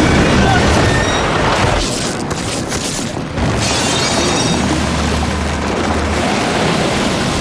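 Film sound of a violent storm at sea: a dense roar of crashing waves and rushing water with a deep booming rumble, under music. About three and a half seconds in it jumps louder as seawater bursts into a flooding cabin.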